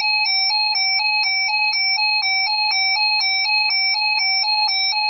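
Emergency alert attention tone: a loud, steady warble switching rapidly back and forth between two high pitches, about four changes a second, signalling that an emergency alert (a tornado watch) is about to be read.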